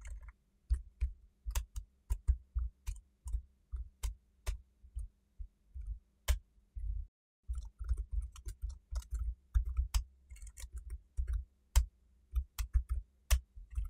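Typing on a computer keyboard: irregular runs of keystrokes, each a sharp click with a dull thud, with a short pause about seven seconds in.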